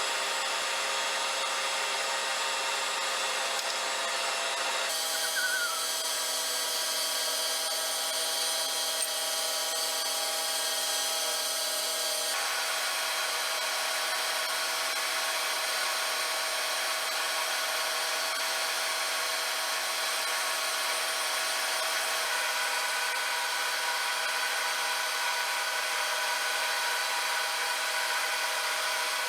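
A machine tool running steadily while cutting metal, with its sound changing abruptly twice, about 5 and 12 seconds in.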